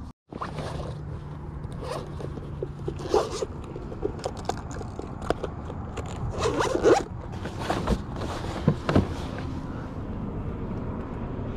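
Zipper on a small black zippered case being worked in several short rasping pulls, the longest about seven seconds in.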